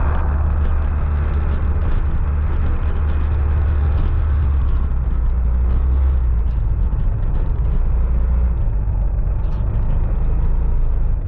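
Motorcycle engine running steadily while riding slowly, heard as a strong, even low rumble.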